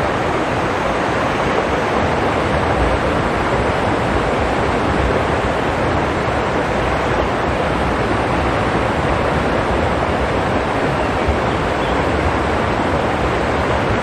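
Shallow rocky stream flowing, a steady rush of water over stones.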